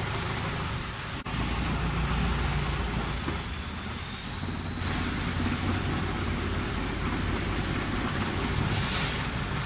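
Long-tail boat engine running steadily under way, its drive shaft and propeller on the long pole at the stern, with water rushing past the hull.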